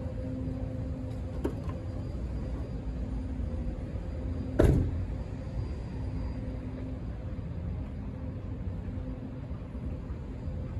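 Car driving, a steady low engine and road hum heard from inside the vehicle, with one sharp thump about four and a half seconds in.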